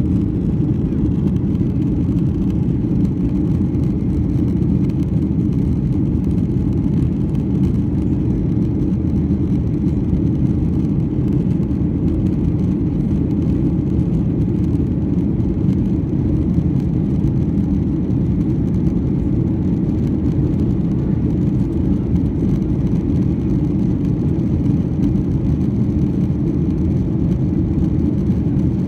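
Steady jet-engine and airflow noise inside the cabin of a Boeing 737-900 (CFM56-7B engines) climbing after takeoff: a deep, even rumble with no change in pitch.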